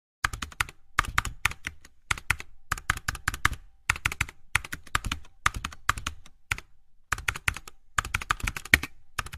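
Computer keyboard typing: rapid clicking keystrokes in short bursts of several keys, about one burst a second.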